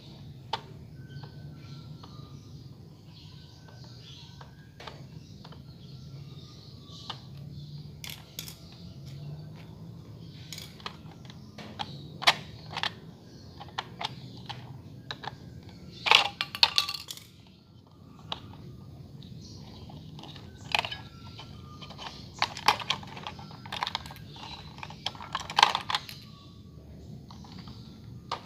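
Irregular small clicks, taps and scrapes of a thin metal rod working at a plastic toy car's battery compartment, with the batteries clicking against the plastic and each other as they come out. The clicks come in clusters, busiest a little past the middle and again toward the end.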